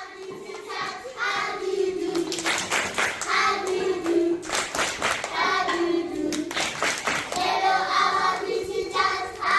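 A group of young children singing together in unison, with hand clapping through the song.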